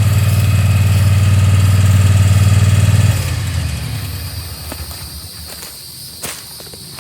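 A small vehicle engine running steadily, then shut off or falling away about three seconds in. After it, insects chirp in the background and there are a few light clicks.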